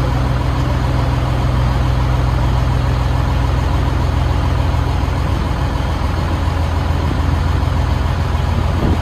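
A shuttle boat's engine running steadily with a deep, even drone, under a steady rushing noise.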